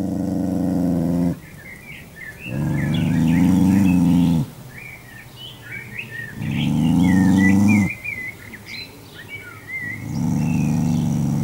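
A small white curly-coated dog growling in four long, low growls, each a second and a half to two seconds, with short pauses between. Small birds chirp continuously in the pauses, more quietly.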